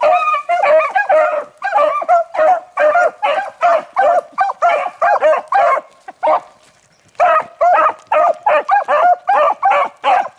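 Beagles baying in quick short barks while running a rabbit's scent, about three barks a second, with a brief lull a little past halfway.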